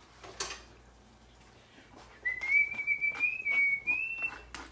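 A person whistling a few wavering notes for about two seconds, starting about halfway in. Under it come repeated knocks and scrapes of a wooden spoon stirring salsa in a stone molcajete.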